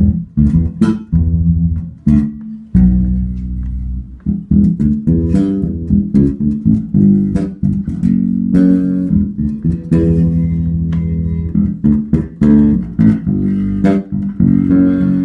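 Electric bass guitar, the Bebop 5, being played solo: a continuous run of plucked bass notes and lines, many with sharp percussive attacks.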